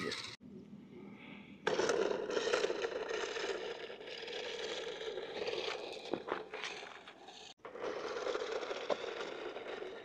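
Small remote-control toy truck driving over rough asphalt: a steady scraping rattle from its plastic wheels and toy motor. It starts about two seconds in and breaks off for a moment shortly before the end.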